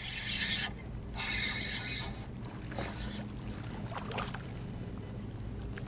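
Live on-board audio from a bass boat: a steady low hum with hissy noise from wind and water, the hiss strongest during the first two seconds.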